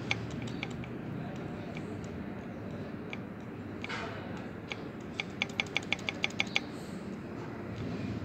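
Light metallic clicks from an engine connecting rod being rocked by hand on its crankshaft journal to check it for play: a few scattered single clicks, then a quick run of about eight clicks in the second half, over a steady low background noise.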